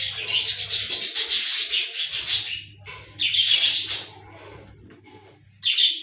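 Parrot giving loud, harsh squawks: one long burst of about two and a half seconds, a shorter one about three seconds in, and a brief one near the end.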